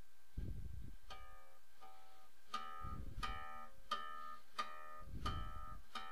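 Guitar playing a repeated chord, struck about every two-thirds of a second from about a second in. Low rumbles come and go underneath.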